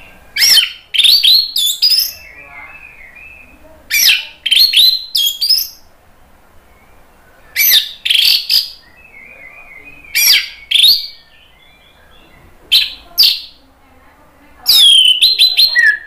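Orange-headed thrush singing loud, sharp whistled phrases, each a second or so long, six times with short pauses between, and softer chirping in the gaps.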